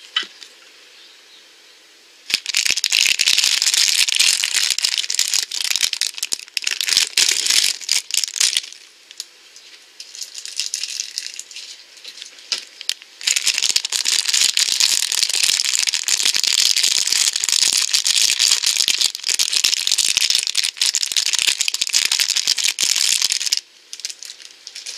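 Blind-bag packaging crinkling as it is handled, in two long stretches of dense crackling: from about two seconds in to about nine, and again from about thirteen seconds to near the end.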